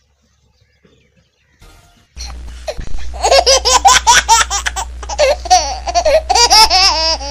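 Near silence for about two seconds, then a loud added laughter clip, with a steady low hum under it that starts abruptly.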